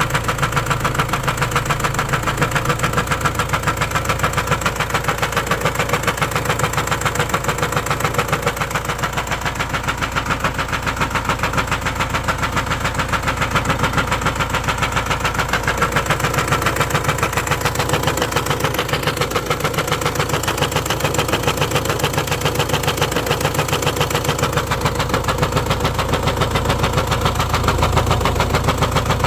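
Renault M9R diesel engine idling steadily with a regular knock that keeps time with the engine. The owner does not know where the knocking comes from.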